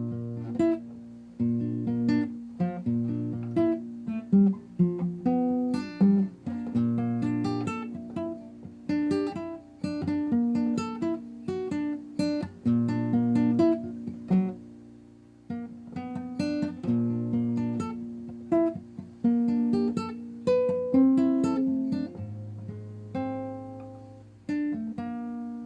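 Acoustic guitar music: a run of plucked notes and strums.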